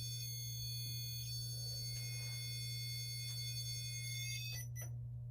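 Steady low electrical hum under several high-pitched steady electronic tones, like an alarm whine. The high tones cut out suddenly after a couple of faint clicks near the end, leaving the hum.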